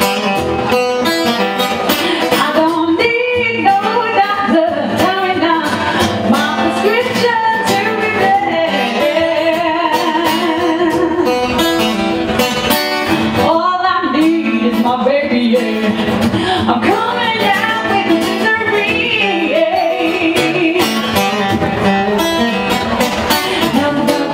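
A woman singing into a microphone, accompanied by a man playing an acoustic guitar: a live acoustic duo.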